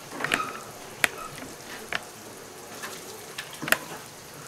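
A spoon stirring a thick beef stew in a cast-iron Dutch oven: wet stirring, with a few sharp knocks of the spoon against the pot.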